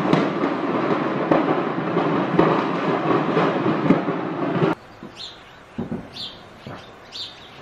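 Loud, dense noise of a petrol station fire burning, broken by several sharp bangs. It cuts off suddenly about five seconds in, leaving quiet open air with a bird chirping about once a second and a few low thuds.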